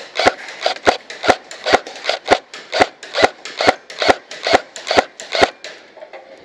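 Electric airsoft rifle, a G&G L85 AFV, firing single shots at a steady pace, about two to three sharp cracks a second, some fourteen in all, stopping about five and a half seconds in.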